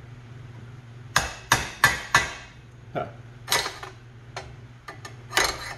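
Hammer tapping a screwdriver against the edge of a steel bushing shell pressed into a truck's front control arm, knocking in the staked lip to work the shell loose. About eight sharp metallic taps at an uneven pace begin about a second in.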